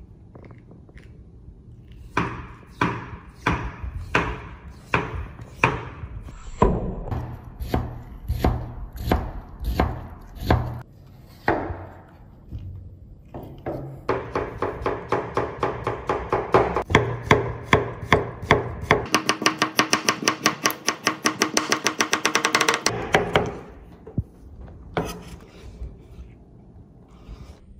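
Kitchen knife chopping on a cutting board: even strokes about two a second. After a short pause about halfway comes a faster, louder run of about five strokes a second with a ringing tone, which stops a few seconds before the end.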